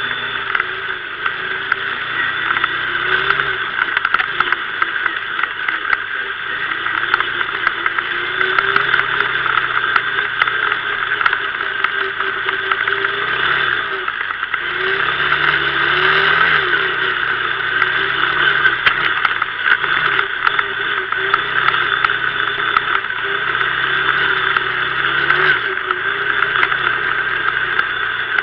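Kymco MXU 500 quad's single-cylinder engine running under way, its revs rising and falling again and again as it is ridden offroad.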